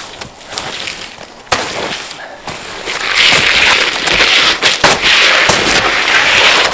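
Campfire crackling with sharp, irregular pops and snaps, building about three seconds in to a dense hissing rush of flames full of crackles.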